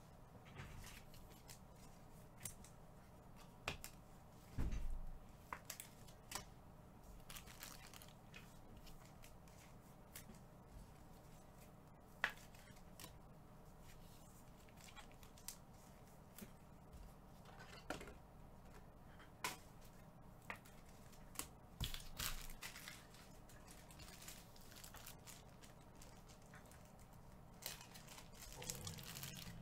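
Faint scattered clicks and rustles of trading cards being handled and slid across a table mat by a gloved hand, with a low thump about four and a half seconds in.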